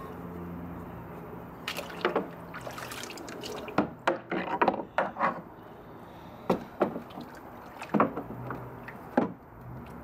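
Vinegar-and-water soak bath splashing and sloshing in a plastic tote as hands move a cast iron piece through it, with short irregular splashes and drips.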